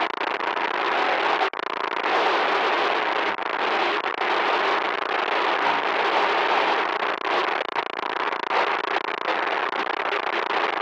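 Loud, harsh electronic static: a dense, crackling noise with brief dropouts.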